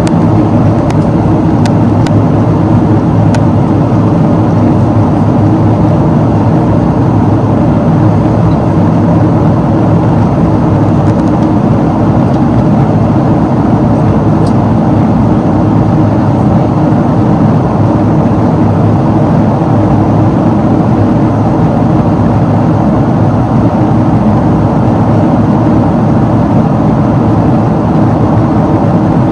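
Steady, loud cabin noise of a Boeing 777-300ER in flight: the General Electric GE90-115B turbofan running at a steady high power together with the rush of air past the fuselage, heard from a window seat beside the engine.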